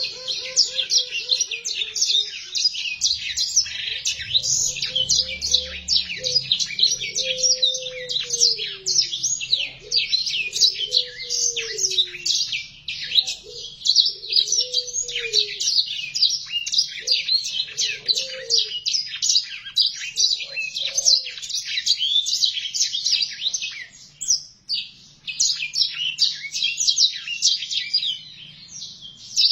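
Black-throated canary (blackthroat) singing a long, fast, continuous twittering song with only brief pauses. In the first half a few lower, slower falling whistles sound under the song.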